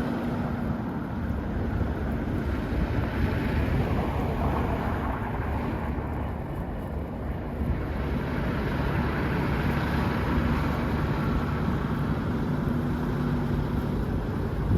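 Snowstorm wind buffeting the microphone: a steady low rumble that keeps going without letting up.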